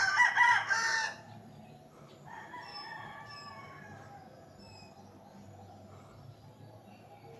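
A rooster crows loudly in the first second, and a second, fainter crow follows about two seconds in.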